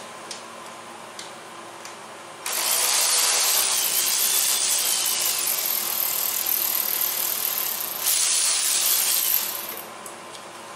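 Ratchet wrench clicking quickly and continuously as a bolt is turned, starting a couple of seconds in and running about seven seconds, with a brief break near the end.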